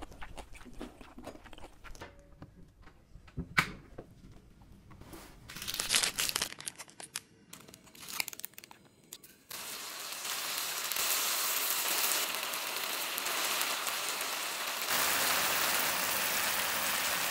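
Plastic udon-noodle packet crinkling and tearing as the noodles are added to the pan. From about ten seconds in comes a steady sizzle of noodles and mala sauce cooking in the hot pan, a little louder near the end.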